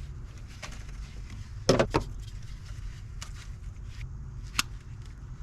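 A few sharp clicks and knocks of small parts or tools being handled, the loudest cluster about two seconds in, over a low steady hum.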